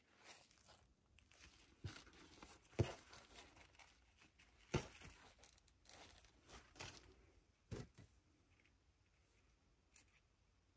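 Faint rustling and crinkling of fabric ribbon being pulled out of a plastic wreath form and bunched by hand, with a few sharp clicks, the loudest nearly three seconds in and again near five.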